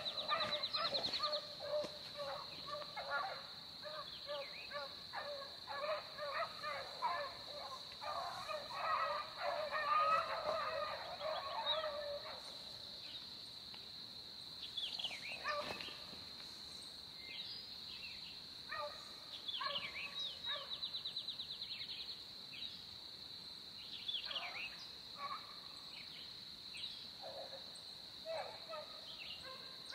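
A pack of beagles baying as they run a rabbit's track, many voices overlapping in the first dozen seconds, then thinning to scattered bawls. A steady high-pitched drone runs underneath.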